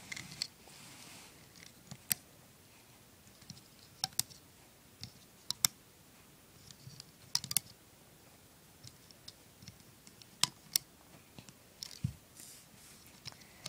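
Scattered sharp clicks and light scuffs, about eight clicks in all, as rubber bands are stretched and snapped onto the pegs of a plastic bracelet loom.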